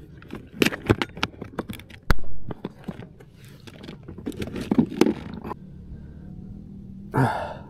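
Plastic tackle box being shut and handled: a quick run of clicks and knocks from the lid and latches, with one loud knock about two seconds in, then a brief rustle near the end.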